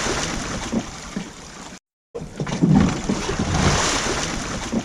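Pool water splashing and sloshing as a heavy sit-on-top fishing kayak, a Jackson Coosa FD, is rolled over from capsized to right side up. The splash comes twice: it fades, cuts out briefly just under two seconds in, then starts again loudly and fades.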